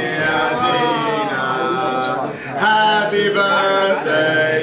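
People singing together, holding long drawn-out notes with short breaks between phrases.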